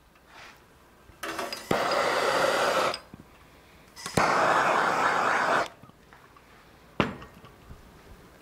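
Handheld gas torch fired in two steady rushing bursts of about a second and a half each, each opening with a sharp click, heating an aluminum pulley so it expands to fit onto a steel shaft. A single sharp click near the end.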